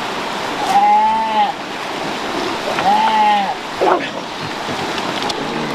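Steady rush of water, with a voice giving two short calls that rise and fall in pitch about two seconds apart, and a brief sharper sound just after the second.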